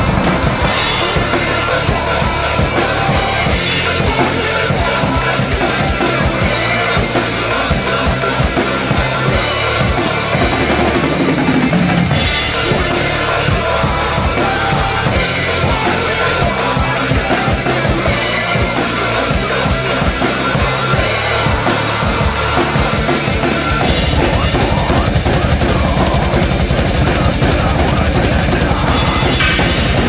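Full drum kit played hard in a metalcore style: kick, snare and crashing cymbals. About six seconds before the end the kick turns into a fast, even pulse.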